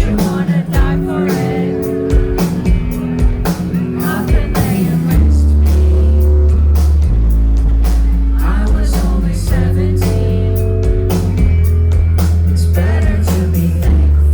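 Live rock band playing, with steady drum hits throughout; a heavy low bass and guitar part comes in about five seconds in and keeps going.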